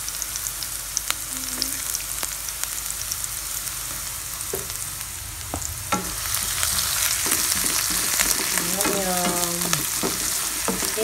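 Chopped onion and garlic sizzling in hot oil in a pan, stirred with a spatula that clicks and scrapes against the pan. The sizzle grows louder about halfway through.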